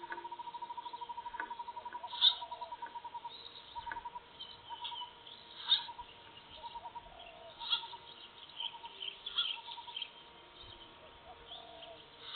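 Forest ambience with birds calling: a fast run of even, repeated notes for the first three seconds or so, then scattered notes and several short sharp chirps, the loudest about two seconds in.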